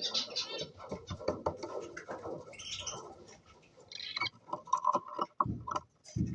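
Cockatiels giving short chirps amid scattered clicks and taps, with two dull thumps near the end.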